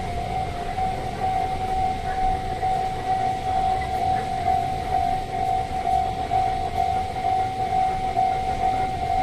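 Japanese level-crossing warning alarm ringing: one electronic tone repeating at an even, rapid pace, over a low rumble.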